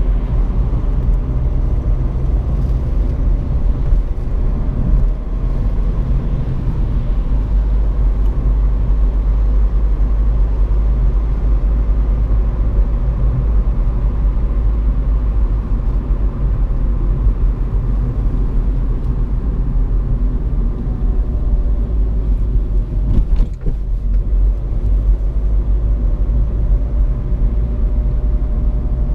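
Seat Ibiza's 1.6 TDI four-cylinder diesel engine running under way, with tyre noise from a wet road, heard from inside the cabin as a steady rumble whose engine pitch slowly rises and falls. A short click and a brief dip in the sound come near the end.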